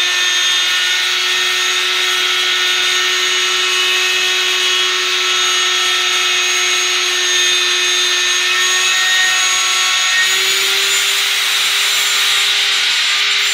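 Handheld router running at full speed with a flush-trim bit, cutting along a wooden edge: a loud, steady high whine with the hiss of the cut, its pitch lifting slightly about ten seconds in.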